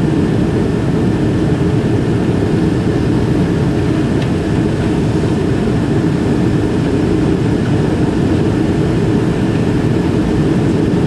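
Steady cabin roar of a Boeing 777-300ER climbing after takeoff, heard from a window seat over the wing: its GE90 jet engines at climb power, a dense even rush weighted heavily to the low end.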